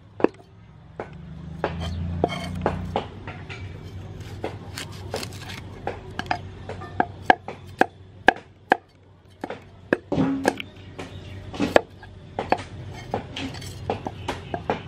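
A large kitchen knife scraping and tapping along a whole fish on a wooden chopping board as the fish is scaled and cut: a run of sharp, irregular clicks and knocks.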